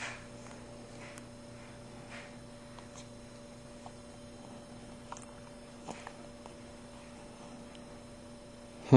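Low steady electrical hum with a few faint soft ticks, and a brief louder sound cutting in at the very end.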